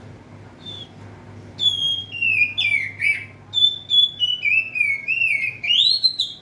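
Oriental magpie-robin (kacer) singing a rapid run of loud, clear whistled phrases that slide down and up in pitch, starting about a second and a half in after one faint opening note.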